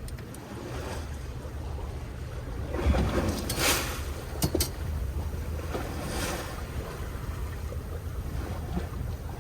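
Wind and sea noise on a fishing boat: a steady low rumble with two louder rushes of wind or water, about three and six seconds in, and a sharp click between them.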